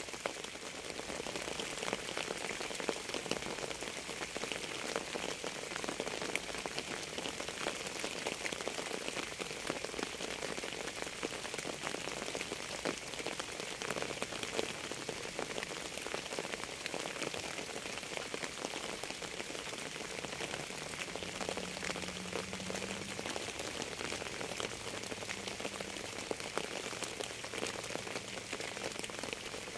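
Steady rain falling, with many separate drops striking a surface throughout.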